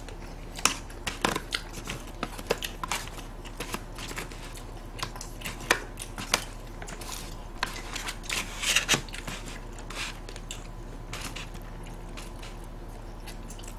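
Eating at close range: chewing, with scattered irregular clicks of wooden chopsticks against plastic takeout containers.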